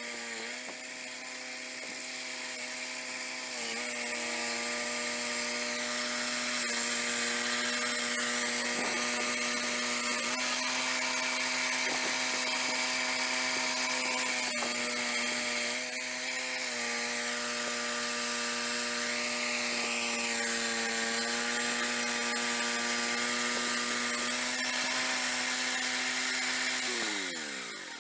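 Portable swing-blade sawmill's 13-horsepower engine running steadily as the circular blade makes an 8-inch-deep cut along a log, its pitch dipping briefly three times. Near the end the engine is switched off and winds down, its pitch falling away.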